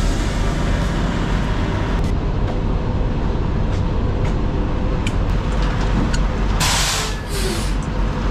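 Steady low rumble of idling semi-truck diesel engines. A short burst of hissing air, about a second long, comes near the end.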